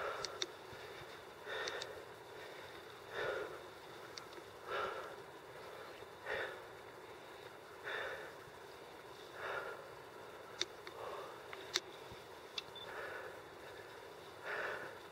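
A climber breathing hard on the ascent, close to the microphone: a heavy breath about every second and a half, easing somewhat after about ten seconds, with a couple of sharp clicks in between.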